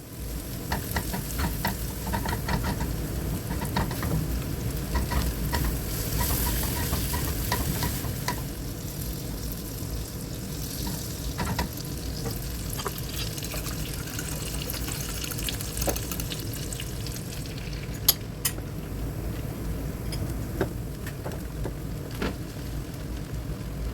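Food stir-frying in a large pan: a steady sizzle with a metal spatula scraping and clicking against the pan, busier in the first third, with one louder knock about 18 seconds in.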